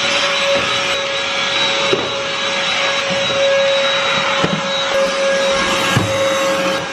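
Handheld cordless vacuum cleaner running steadily with a constant motor whine. A few light knocks come from the nozzle against the wooden stair treads.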